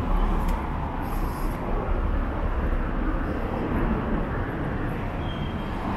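City street ambience: a steady wash of traffic noise with a deep low rumble.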